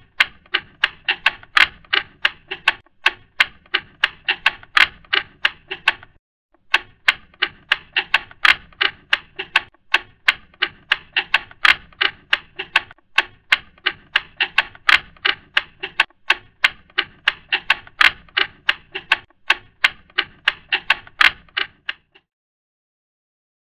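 Sewing machine stitching: rapid, even mechanical clacking in runs of about three seconds with short pauses, which stops near the end.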